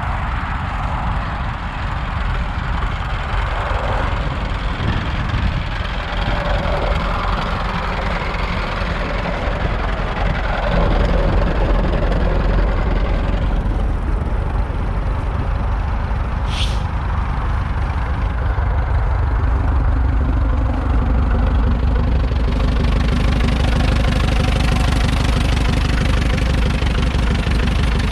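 Tractor engine running steadily, getting louder about eleven seconds in, with one brief high squeak a few seconds later.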